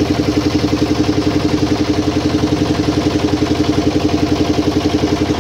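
Small motorboat engine running steadily, with a fast, even chugging pulse.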